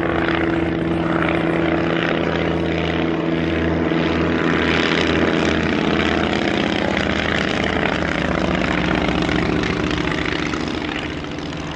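Piper Super Cub tug's piston engine and propeller running steadily under power while towing a glider aloft, easing off slightly near the end.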